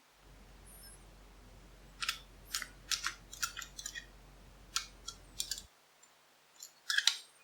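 Steel lock picks clicking and scraping inside an old four-lever padlock as it is being picked: a run of sharp light clicks from about two seconds in, and a few more near the end. A faint low hum underneath cuts off suddenly about two thirds of the way through.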